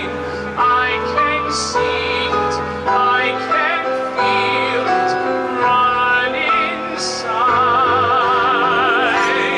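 A woman and a man singing a show-tune duet with vibrato over instrumental accompaniment, holding a long note near the end.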